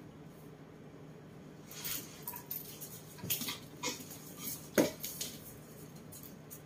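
Pig-tailed macaques scuffling on a tiled floor as the big one lunges at a small leashed monkey: a run of scrapes, taps and knocks, the loudest a sharp knock about five seconds in, over a steady low hum.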